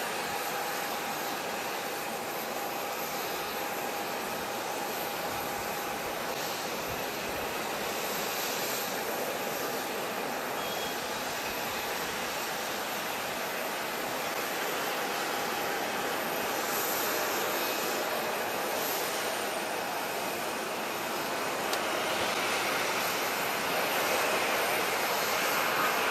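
Four-engine Airbus A340-300's CFM56 jet engines running at low thrust as the airliner taxis: a steady jet rumble and whine that grows louder over the last few seconds.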